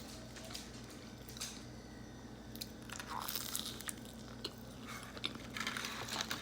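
A person chewing and biting food, with scattered short mouth clicks and bites.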